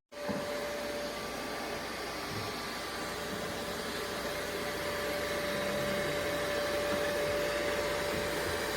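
Ecovacs Deebot X9 Pro robot vacuum running: a steady rushing whir with a constant hum over it, starting abruptly.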